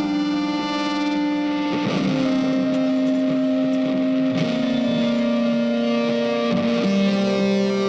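Background music: a guitar with effects playing long held notes that move to a new pitch every second or two.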